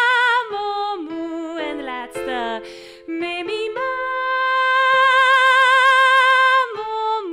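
A woman singing a vocal exercise on 'me, mi, ma, mo, moe': a quick run of falling notes, then a long high note with vibrato that swells louder in a crescendo and breaks off near the end, over steady held backing notes.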